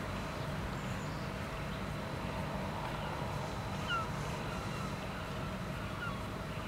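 Small birds giving short chirps a few times, mostly about halfway through, over a steady low hum.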